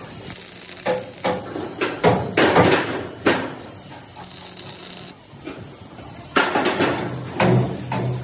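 Sharp metallic clanks and knocks of steel on steel, in two bunches with a quieter stretch between, as a bent steel bar hooked under an I-beam forces a steel plate down onto the beams for tack welding. A low hum comes in near the end.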